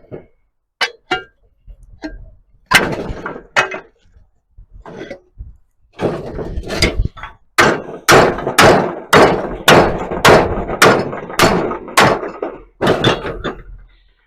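Hammer blows on a metal plate, panel beating it into a curve. A few scattered strikes come first, then a steady run of about two blows a second through the second half.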